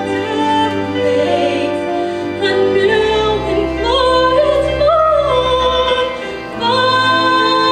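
Music: a female voice singing long held notes with vibrato over instrumental accompaniment with low bass notes, the sound dipping briefly about six seconds in before the next phrase swells back.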